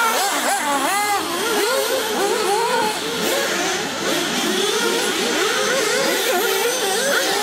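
Several 1/8-scale nitro RC buggies racing, their small two-stroke glow engines buzzing and revving up and down over one another. One swells up in pitch and falls away about a second in.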